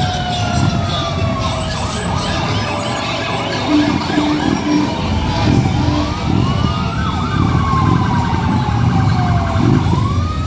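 Fire truck sirens wailing, more than one at once, each rising and then falling slowly in pitch, with a fast warble from about seven to nine seconds. A few short low tones sound about four seconds in, and the trucks' engines rumble underneath.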